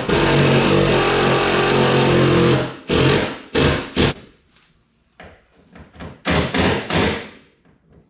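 Cordless power driver running bolts in: one long run of about three seconds, then several short bursts as the bolts are snugged down.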